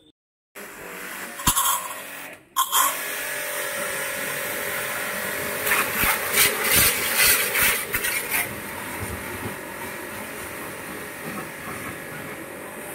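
Shakti Technology S5 1900-watt high-pressure car washer running, its motor humming steadily under the hiss of the water jet spraying the car. The hiss comes louder in a run of pulses between about six and eight and a half seconds in.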